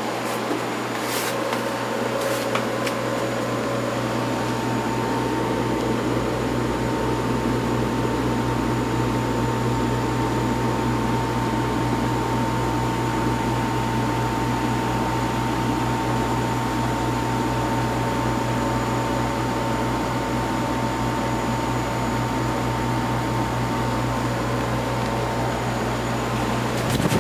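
Steady hum and whoosh of grow-room ventilation: oscillating fans and ducted air running, with a low hum and a thin steady whine that comes up a few seconds in.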